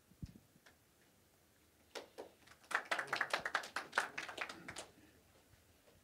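Brief, scattered applause from a small audience, starting about two seconds in and dying away about three seconds later.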